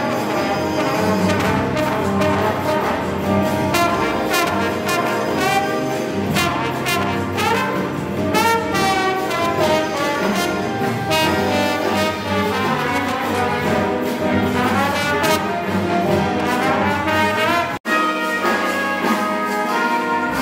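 Jazz big band playing, with the brass section of trombones and trumpets to the fore over the saxophones and rhythm section. Near the end the sound cuts out for an instant and comes back on a quieter, thinner passage.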